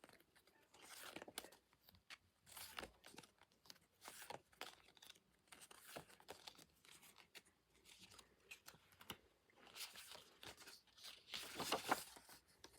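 Faint paper and plastic handling: irregular rustling, crinkling and small taps as a K-pop album's packaging and printed inclusions are picked up and moved, busiest near the end.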